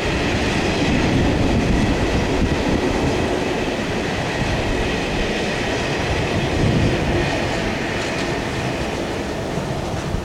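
A train running past at close range: a steady rumble of wheels on the rails, with a faint high ringing tone above it.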